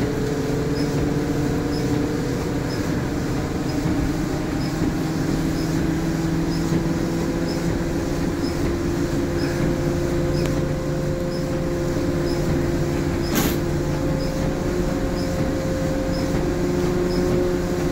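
An MBTA city bus running as it drives, heard from inside the cabin: a steady rumble with a drivetrain whine that rises slowly in pitch. A faint high tick repeats about once a second, and a single sharp click comes about 13 seconds in.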